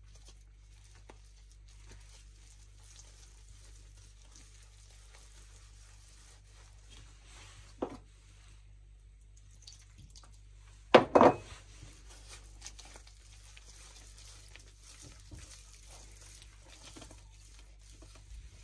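Hands squishing and rubbing gram-flour batter in a ceramic bowl, a faint rustle. There is a small knock about eight seconds in and a loud double knock about eleven seconds in, as water is poured in from a ceramic cup.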